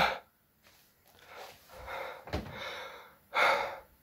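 A man breathing hard and gasping, out of breath after trying to drink water upside down in a handstand: a few heavy breaths, the loudest at the start and about three and a half seconds in.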